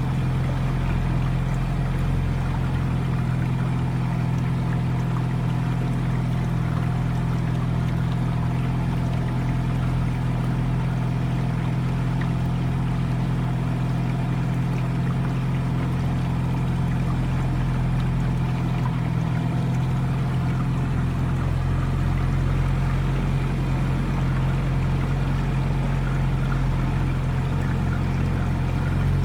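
Small boat's outboard motor running at a steady speed, a constant low drone with water rushing along the hull.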